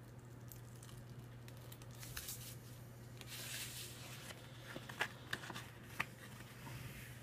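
A sheet of cut vinyl decal being handled: a soft tearing rustle as it is peeled up and lifted off the mat, then a few sharp crackles of the backing sheet as it is picked up and held up.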